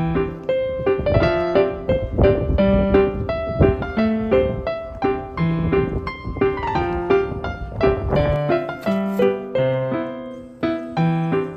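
Background music: a piano playing a light melody of quick, repeated notes.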